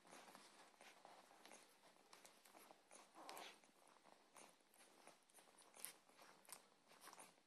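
Faint rustling and small irregular clicks from a pile of puppies shifting and mouthing one another close by.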